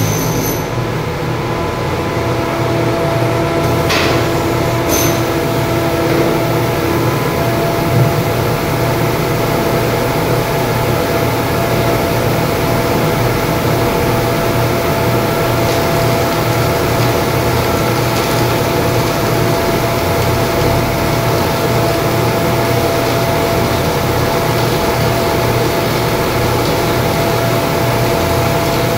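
Steady machinery drone with a low hum and a constant whine running under it, and a couple of faint clicks about four and five seconds in.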